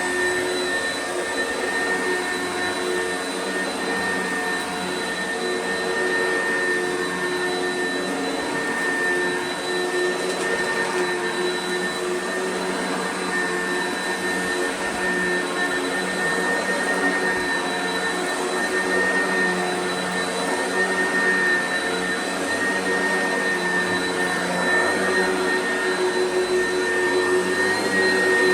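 Vacuum cleaner running steadily over carpet, a continuous motor hum with a constant high whine.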